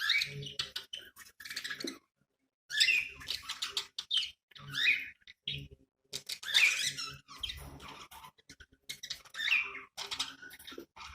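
Budgerigars chirping and chattering in quick, squeaky bursts, with a short break about two seconds in.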